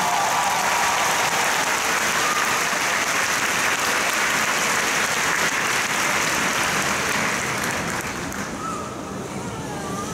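Crowd applauding, loud for about eight seconds and then tapering off.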